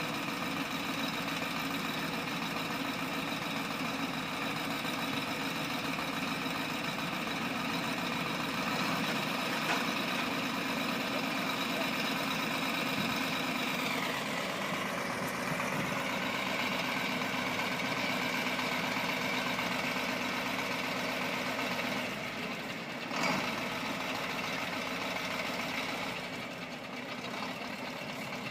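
Diesel engine of heavy construction machinery running steadily, its note dropping about halfway through as the revs fall.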